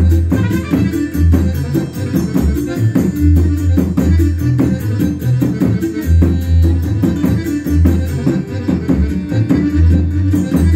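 Bass drum with a small cymbal mounted on top, beaten in a quick bătuta folk dance rhythm: deep booming drum strokes mixed with crisper cymbal strikes, over folk music with melody instruments.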